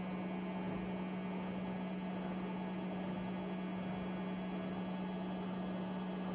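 Washing machine on its spin cycle, heard as a steady, unchanging hum.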